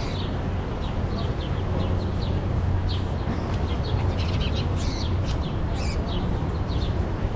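A flock of birds chirping, many short high chirps overlapping, over a steady low rumble of city background.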